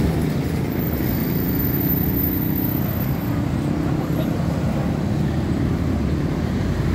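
Steady road traffic: cars driving past close by, a continuous low rumble of engines and tyres.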